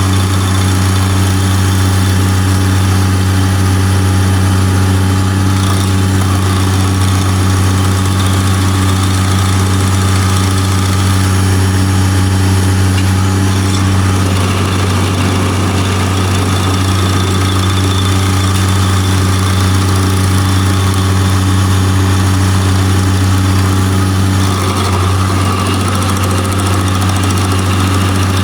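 Bobcat MT100 mini skid steer's engine running steadily while powering an SG30 stump grinder attachment, with one even, unbroken tone.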